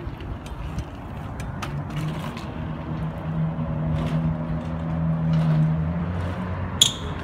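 Low, steady hum of passing street traffic, swelling and then fading, with scattered light clicks and one sharp clack near the end.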